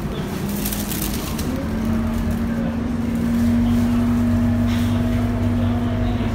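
A city bus's engine and running gear heard from inside the cabin while it drives: a steady low hum whose pitch steps up about a second and a half in, as the bus gathers speed, with a brief clatter in the first second.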